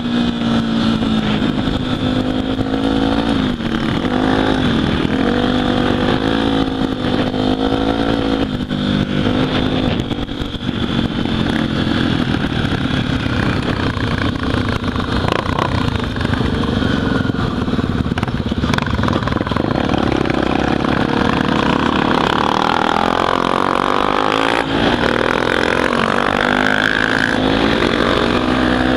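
Honda XR 250 Tornado's single-cylinder four-stroke engine running under way on a dirt trail, its revs rising and falling with the throttle.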